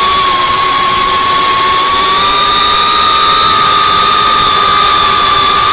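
FPV quadcopter's electric motors and propellers whining at a near-steady pitch over a loud, constant hiss of propeller wash and wind. The pitch dips slightly at the start and rises a little about two seconds in, as the throttle changes.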